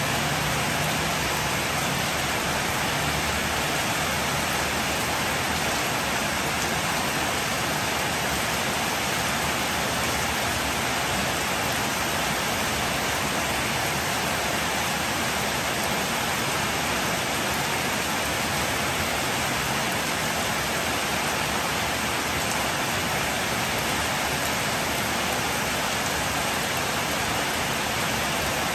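Heavy rain falling steadily on a wet street, an even unbroken hiss, with a faint low hum near the start and again near the end.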